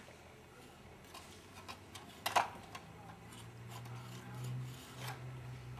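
Scattered light clicks and knocks of plastic LEGO pieces as the model is handled and its parts are moved, with the loudest click about two seconds in and another near the end. A faint low hum comes in about halfway.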